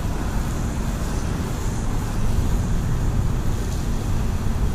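Steady rush of water from a hose rinsing shampoo off a car's roof, with a low rumble under it.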